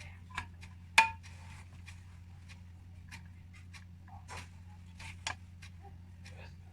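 Scattered light clicks and clinks of kitchen utensils and dishes, the sharpest about a second in, over a low steady hum.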